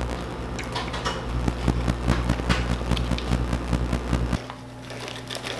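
Steady low electrical hum with many small irregular clicks and crackles of kitchen handling over it; the hum cuts off about four and a half seconds in, leaving a quieter, thinner hum.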